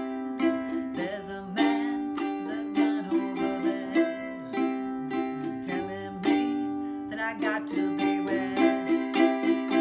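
Acoustic ukulele strummed in steady chords, with a woman singing along. The music stops abruptly at the very end.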